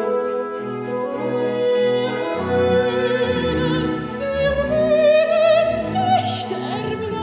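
A female classical singer singing in operatic style, accompanied by a small chamber ensemble of violins, double bass and bassoon. The melody climbs higher in the second half.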